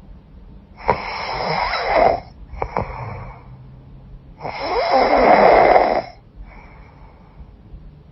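A woman snoring with a blocked, runny nose. There are three snores, the first and last each over a second long with a shorter one between, then a fainter breath near the end.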